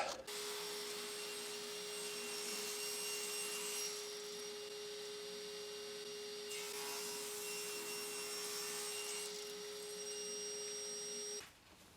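A power saw running with a steady hum, cutting maple blocks; it cuts off suddenly near the end.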